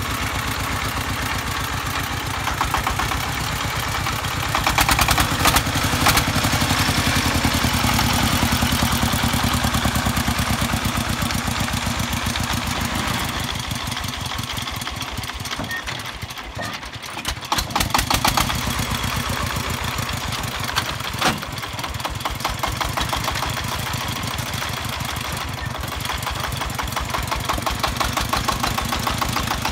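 Single-cylinder diesel engine of a công nông two-axle farm tractor running while it hauls a load of logs: a steady, fast, even chugging of firing strokes. It drops off briefly a little past halfway and comes back louder.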